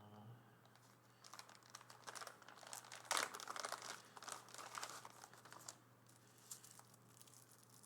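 Plastic packaging crinkling as accessories are handled and unwrapped, in irregular rustles that are busiest in the middle seconds, with the loudest one about three seconds in.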